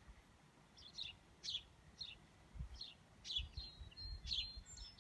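Songbirds chirping: a run of short, high chirps, about two a second, with low rumbling on the microphone from about halfway in.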